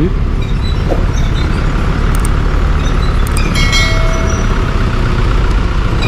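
Motorcycle riding noise in street traffic: a steady low rumble of engine, wind and road, with a brief faint high tone a little after halfway.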